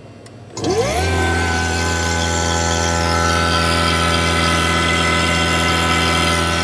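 Fieldpiece vacuum pump switched on about half a second in: its motor spins up with a quick rising pitch, then runs loud and steady with a hum and a high steady tone. It is beginning to pull a vacuum on the refrigeration system.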